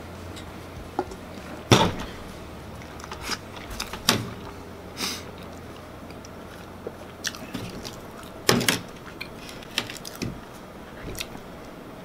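A man eating a peanut butter and jelly sandwich at close range: scattered biting and chewing noises, with two louder knocks about two seconds in and about eight and a half seconds in.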